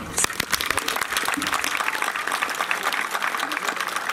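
Audience applauding, the clapping starting about a quarter second in.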